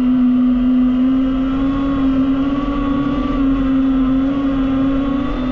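DJI FPV drone's motors and propellers whining in flight, a steady pitched drone whose pitch drifts slightly up and down with the throttle.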